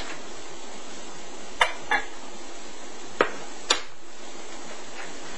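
Glass casserole dish and its glass lid clinking as the lid is taken off: four sharp clinks over about two seconds, over a steady background hiss.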